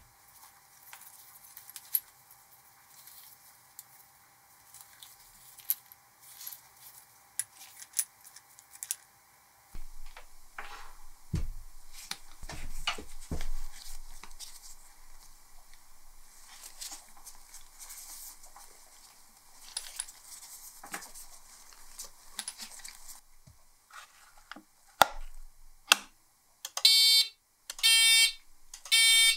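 Faint clicks and knocks as the lamp is handled on a workbench, then two sharp switch clicks. Near the end a loud pulsing alarm tone starts, about one beep a second: a warning-alarm effect wired to the restored submarine signal lamp's switch, sounding while the lamp is lit.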